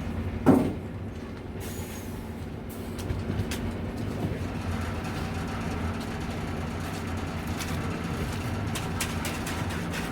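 Diesel engine of a concrete delivery truck running steadily at low revs, with one sharp knock about half a second in and a few light clicks near the end.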